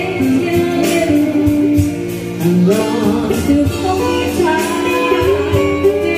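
Live band music: a woman singing through a microphone, accompanied by an electronic keyboard and an electric guitar.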